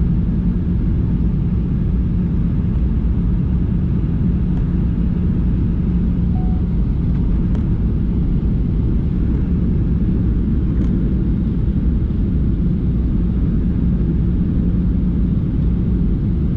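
Steady cabin noise of a jet airliner in flight, heard from a window seat inside the cabin: a low, even rumble of engines and airflow with a constant hum.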